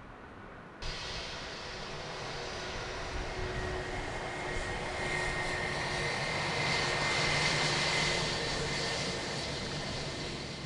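Jet airliner's engines passing close by: a rushing roar with a steady high whine that swells to its loudest about seven to eight seconds in, then begins to fade.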